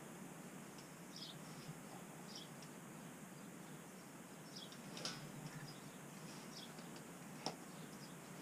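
Quiet rustling and scratching of hemp wool insulation batts being pushed up between roof rafters by hand, with a couple of sharp clicks about five and seven and a half seconds in.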